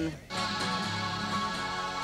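Music starting a fraction of a second in, after a brief drop in level: sustained guitar chords with no voice.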